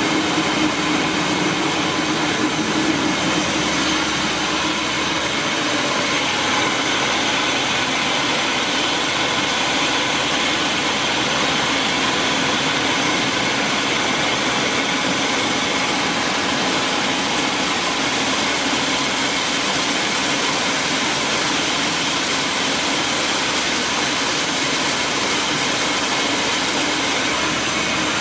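Maize grits and flour milling machinery running steadily: a loud, even mechanical noise with faint steady tones and no breaks.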